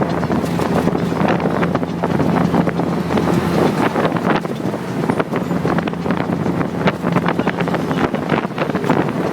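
A vehicle engine running with a steady low hum under heavy wind buffeting on the microphone, with frequent small knocks and rattles.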